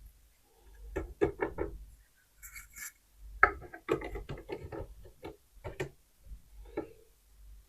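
Small plastic toy dishes being handled, a run of light clacks and knocks in irregular clusters.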